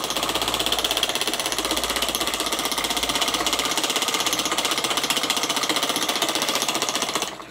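Atomotor 107 toy electromagnet engine running on 3 V: its pivoting plate snaps to the single coil and is released as the breaker switches the power on and off, making a rapid, even clatter while the flywheels spin. The clatter stops suddenly just before the end.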